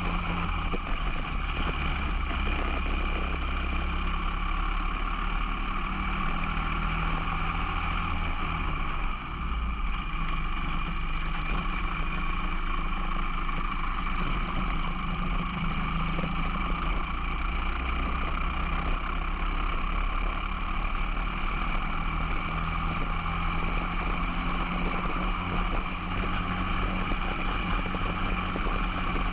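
Briggs & Stratton 206 four-stroke single-cylinder kart engine running at racing speed, heard from on board the kart. Its note dips briefly about nine seconds in and then picks up again.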